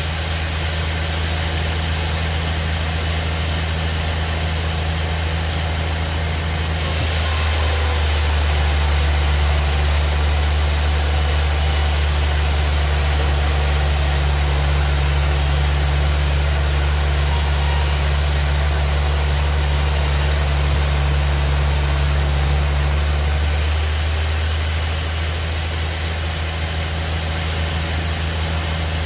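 Sawmill bandsaw running with a steady low hum. From about seven seconds in it grows louder, with a bright hiss added, as the blade cuts through a rain tree (trembesi) log for about fifteen seconds, then drops back to the running hum.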